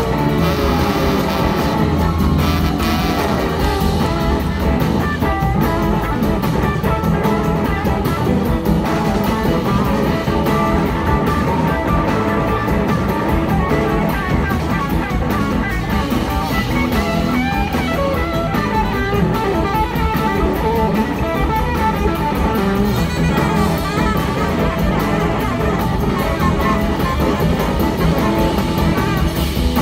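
Live blues-rock band playing, with electric guitars out front over a drum kit.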